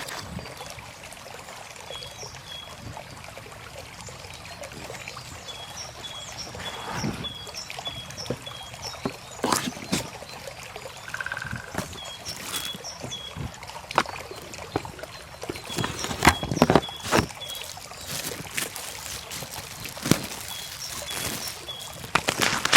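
Outdoor ambience with a bird repeating short, high chirps in quick series, over a steady background hiss. Scattered sharp clicks and knocks come through it, several of them loud around two thirds of the way in.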